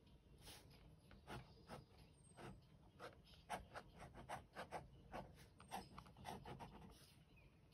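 Black pen scratching on sketchbook paper in short, irregular strokes as lines are drawn; faint.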